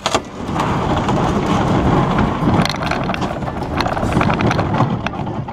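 Emotion Wasatch canoe hull scraping over the gravelly paved boat ramp as it is pushed toward the water, a loud continuous grinding scrape starting about half a second in.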